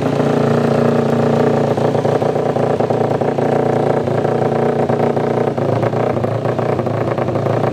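Mahindra Moto3 race bike's 250 cc single-cylinder four-stroke engine running steadily at low revs on the stand, with no rise or fall in pitch.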